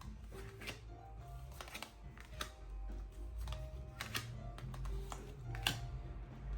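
Soft background music with long held low notes, with sharp clicks and taps now and then from tarot cards being handled.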